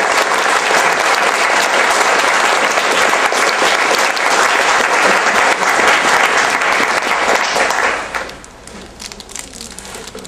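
Audience applauding at the end of a talk, a dense steady clapping that dies away about eight seconds in, leaving a few scattered claps.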